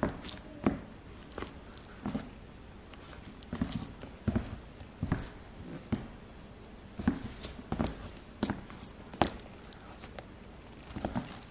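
Footsteps of rubber-soled leather Tory Burch Minnie ballet flats on a hardwood floor: irregular soft thuds with sharper clicks, with a pause here and there between steps.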